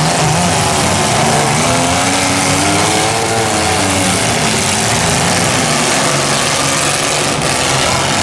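Several compact-car engines in a demolition derby running and revving, their pitch rising and falling as the cars accelerate and manoeuvre.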